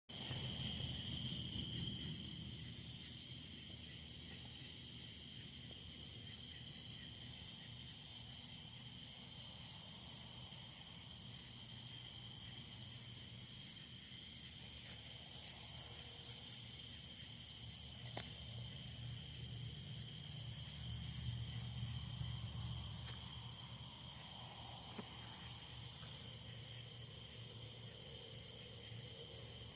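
Crickets trilling steadily at night, a continuous high-pitched chorus in two pitches, over a low rumble.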